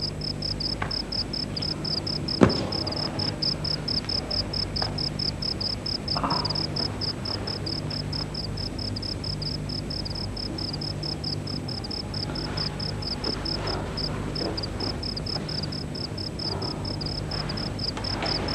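Crickets chirping in a steady, quick, even rhythm of several chirps a second, over a low steady hum. A single sharp knock sounds about two and a half seconds in.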